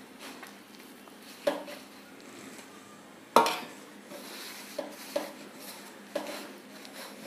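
Hands working wheat flour dough in a stainless steel bowl: soft rubbing against the steel, with several sharp knocks and clinks of the bowl, the loudest about three and a half seconds in.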